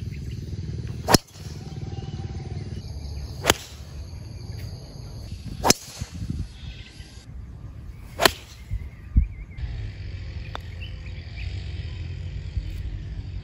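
Four sharp cracks of a golf driver striking the ball off the tee, about two to two and a half seconds apart, then a few fainter knocks, over steady outdoor wind rumble.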